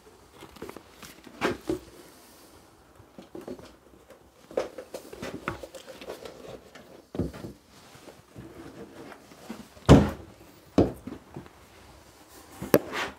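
Scattered wooden knocks, clicks and handling noises from a timber newel post and staircase parts being handled and fitted, with the sharpest knock about ten seconds in and a few more near the end.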